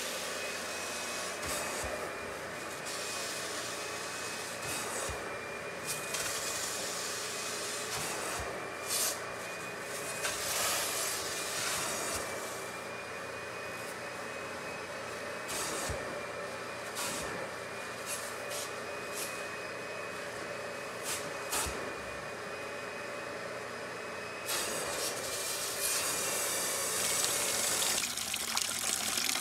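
Upholstery hot-water extraction wand working a fabric sofa cushion: the vacuum draws steadily with a thin whine while the spray hiss cuts in and out with each stroke. Near the end, dirty extraction water pours into a plastic bucket.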